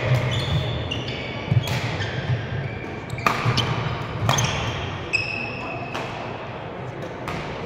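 Badminton rally: rackets striking the shuttlecock about once a second, with sneakers squeaking on the court floor between the hits.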